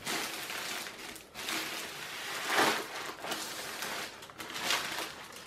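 Clear plastic bag crinkling and rustling as a rolled canvas in its paper sleeve is slid out of it, with louder crinkles about halfway through and again near the end.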